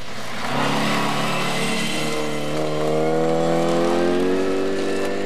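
Historic rally car accelerating past on a gravel stage and pulling away. Its engine note climbs steadily in one gear, then holds near the top, over the hiss of tyres on gravel.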